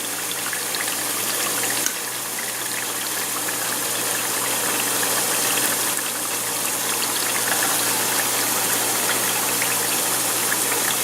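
Ground beef and sausage sizzling as they brown in a pan on medium-high heat: a steady hiss speckled with small crackles.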